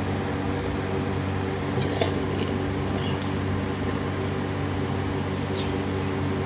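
Steady low background hum with a few faint clicks, about four seconds in and again a second later, as a computer mouse is clicked.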